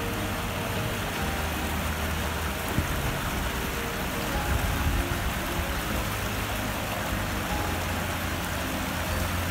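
Shallow stream water running steadily over stones, with a low, steady rumble of road traffic underneath.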